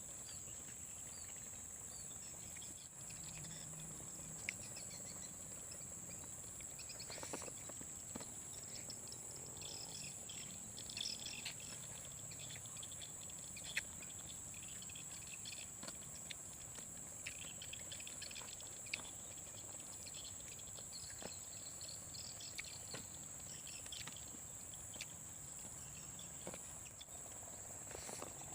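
Rainforest ambience: a steady high-pitched insect drone, with scattered short chirping calls and a few sharp clicks.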